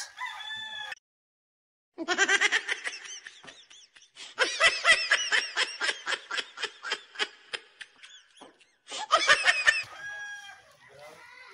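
Troll-laughing meme sound effect: loud, rapid cackling laughter that cuts in after a second of dead silence and runs for about eight seconds, with a short break near the end.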